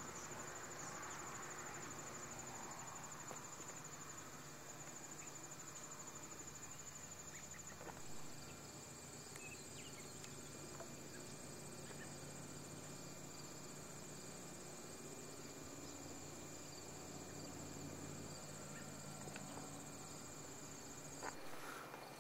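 Insects trilling: a faint, steady, high-pitched trill that stops abruptly near the end, over a low steady hum.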